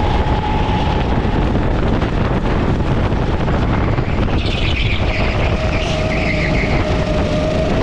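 Go-kart engine heard from onboard under loud wind buffeting on the microphone. The engine's tone drops away about a second in, then comes back lower around five seconds in and climbs slowly as the kart accelerates again.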